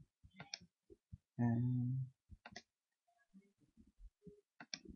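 A few sharp computer mouse clicks, spread out, from navigating between program windows. A short wordless sound from a man's voice comes about a second and a half in.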